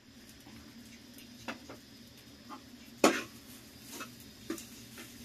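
Scattered small clicks and knocks of household handling in a small room, with one louder sharp sound about three seconds in.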